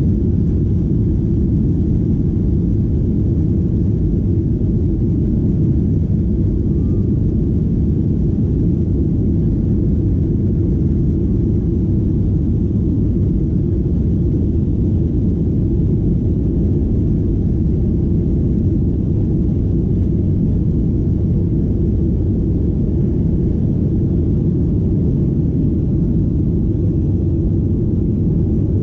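Steady low cabin rumble of a Boeing 737-800 in motion: the CFM56 engines and airflow heard from inside the passenger cabin, holding even throughout.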